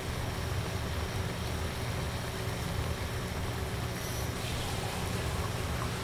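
Steady low background rumble with a hiss over it, with a few faint clicks about four seconds in.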